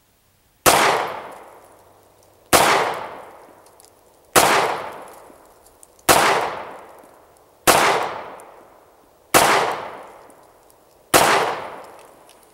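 Seven pistol shots from a Taurus PT709 Slim 9mm, fired at a slow, steady pace just under two seconds apart. Each shot is followed by a long echoing decay.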